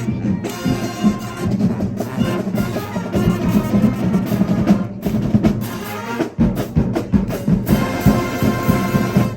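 Marching band playing: brass holding sustained chords over a busy drum line, ending in a sudden cutoff.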